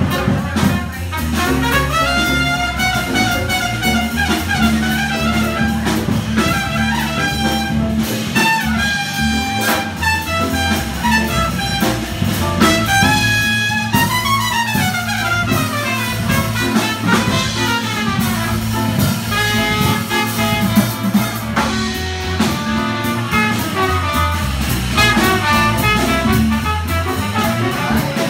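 Live jazz band playing up-tempo modal swing: trumpet and alto saxophone lines over piano, upright bass and a drum kit.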